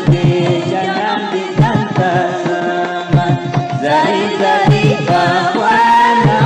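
Background music: a melodic South or Central Asian style tune with hand-drum strokes and a wavering lead line, likely a voice or bowed or plucked instrument.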